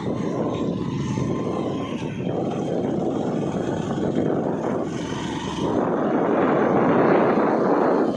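Steady rumbling noise of a moving vehicle, with no clear engine tone, growing louder about six seconds in.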